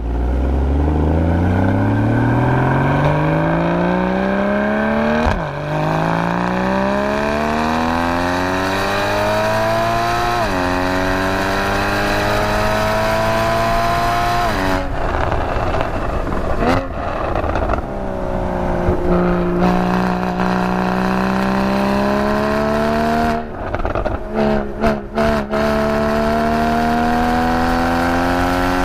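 Porsche Boxster GTS's 3.4-litre naturally aspirated flat-six, heard at the tailpipes, accelerating hard through the gears with rising revs and upshifts about five and ten seconds in. Around fifteen seconds in it lifts off, going rougher and noisier as the revs fall, then pulls up through the revs again, with a few quick breaks in the sound near the end before a last steady climb.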